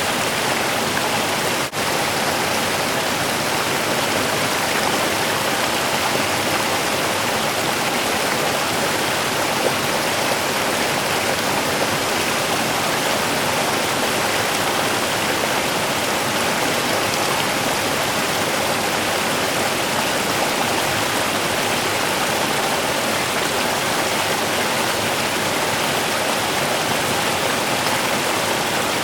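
A small river's water running steadily over its bed, with a brief dropout about two seconds in.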